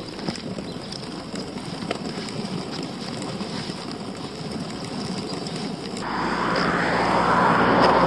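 Footsteps on an asphalt road while walking uphill. About six seconds in, the sound changes suddenly to a louder steady rushing noise with a low rumble, swelling toward the end.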